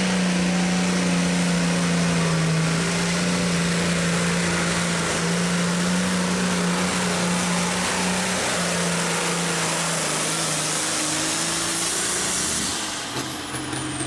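John Deere tractor's turbocharged diesel engine running flat out under load as it drags a weight-transfer sled, one steady drone with a high turbo whistle above it. About a second before the end the engine drops off and the whistle glides down as the pull stops.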